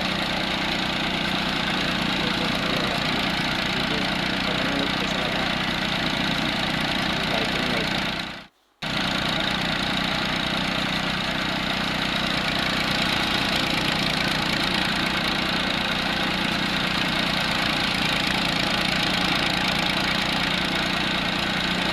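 New Holland tractor's diesel engine running steadily with an even low pulse, cutting out for a moment about eight seconds in.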